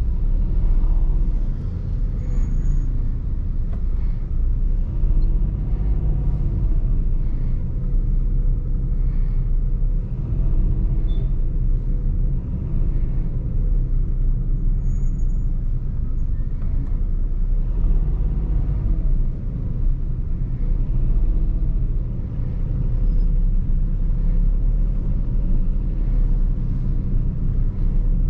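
Toyota Vitz's 1KR three-cylinder 1.0-litre engine and the road noise of the car on the move: a steady low rumble, with the engine note rising and falling every few seconds.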